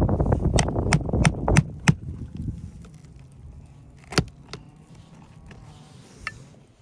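Metal hand tools working asphalt shingles: a quick run of five sharp clicks and taps over a wind rumble on the microphone. Then it goes quieter, with a single louder tap about four seconds in.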